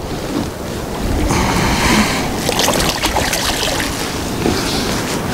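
Wind buffeting the microphone over water splashing at the side of a fishing boat, with a brief burst of splashing about a second in as a hooked fish is grabbed by hand at the gunwale.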